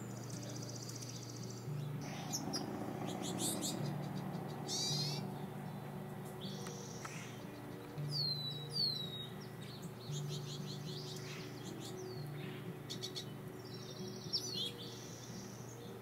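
Small songbirds chirping and calling: a rapid buzzy trill at the start, scattered short chirps, and two sharp down-slurred calls about halfway through. Soft background music plays underneath, slow low notes changing every second or two.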